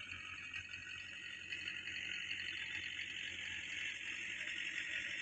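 Belarus tractor pulling a laser land leveler across a field, heard faintly from far off under a steady high-pitched buzzing hiss that grows a little louder about two seconds in.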